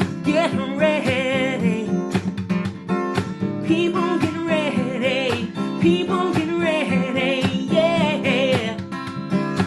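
Acoustic guitar strummed under a singer holding several long notes with heavy vibrato: a live solo voice-and-guitar performance.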